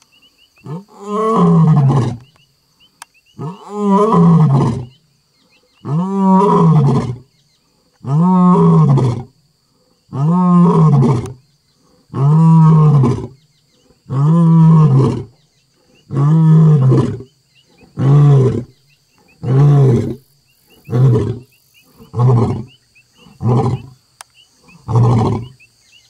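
A male lion roaring: a full roaring bout of deep, drawn-out roars roughly every two seconds, which grow shorter and quicker toward the end, trailing off into grunts.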